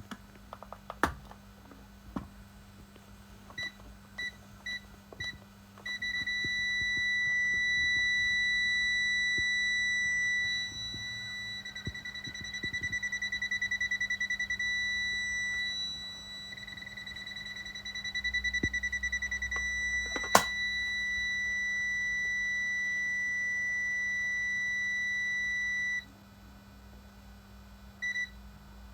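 Electronic piezo sounder of a Guardall PX500 intruder alarm system. It gives four short beeps about half a second apart, like a code being keyed in, then a continuous high-pitched tone with stretches of rapid pulsing, which cuts off suddenly about 26 s in. Two more short beeps follow near the end, and there is one loud click around 20 s.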